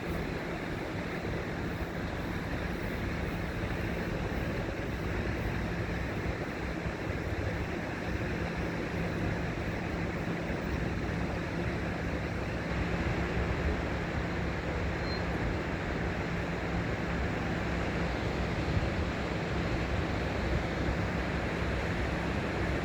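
Steady rushing noise of flowing river water blended with city traffic, with a faint low hum throughout and no distinct events.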